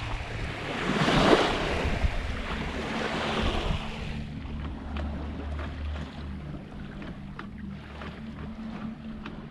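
Water rushing and splashing along the hull of a Comfortina 32 sailing yacht under way, coming in loud swells as the bow wave breaks, with wind on the microphone. After about four seconds it settles to a quieter, steady wash with a few faint clicks.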